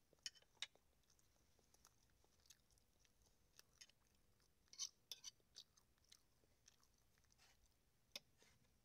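Faint close-up eating sounds: chewing and small wet mouth clicks, with light taps of a metal fork on a plastic meal tray while picking at fish. The sharp clicks come scattered, with a busier cluster about five seconds in.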